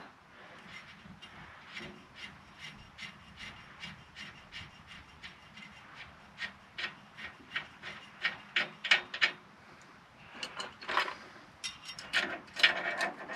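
Light metallic clicks, about two to three a second, with some scraping, as the bearing-adjusting spindle nut on an M1009 CUCV's front hub is worked off the spindle. The clicks get louder near the end.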